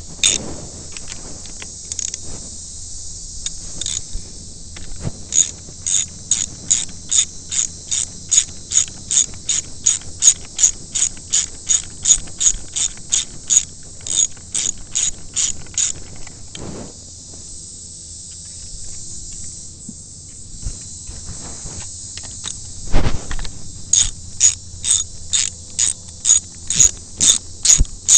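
Socket ratchet clicking in steady runs, about three clicks a second, as it backs out the bolts holding an outboard's fuel rail. The clicking stops for several seconds partway through, a single knock sounds, then the ratcheting starts again.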